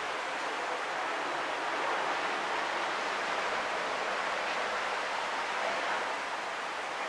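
Small ocean waves breaking and washing on a sandy beach, blending into a steady hiss of surf.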